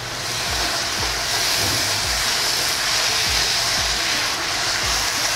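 Thickened jaggery syrup boiling and hissing in a pan as grated carrot goes in and is stirred through, the hiss swelling about half a second in. A steady low beat of background music runs underneath.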